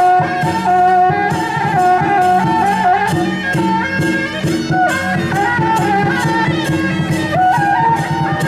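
Loud traditional temple procession music: a reed horn plays a stepping melody over a steady beat of drums and cymbals.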